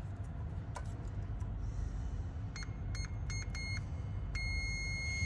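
Snap-on digital multimeter beeping as its probes touch a glow plug terminal: a few short, broken beeps as contact is made and lost, then from a little over four seconds in one steady high beep as the probe holds contact. The beep marks the new glow plug's low resistance, an intact heating element.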